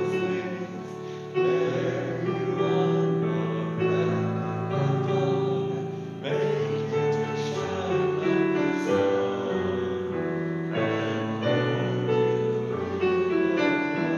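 Slow instrumental keyboard music: held chords that change every few seconds, played as church offertory music.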